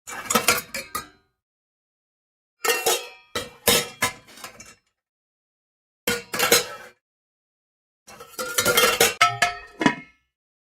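Metal pots and pans clattering and clanging together in four separate bursts of ringing clanks, each a few strikes long, with total silence between them; the last burst is the longest and busiest.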